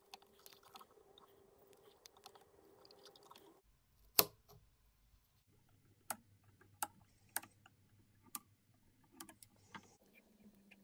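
Faint handling noise from tying bucktail onto a jig hook clamped in a fly-tying vise, with a scattering of small sharp clicks. The loudest click comes about four seconds in, and about six lighter ones follow over the last few seconds.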